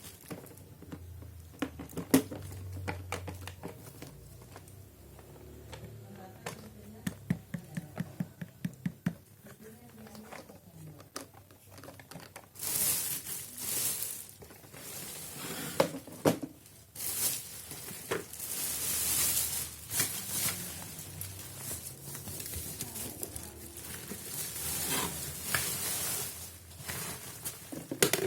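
Plastic packaging crinkling and rustling as it is handled and pulled open, with scattered clicks and knocks. About seven seconds in comes a run of quick ticks, about four a second. From about twelve seconds in, rustling comes in repeated loud surges.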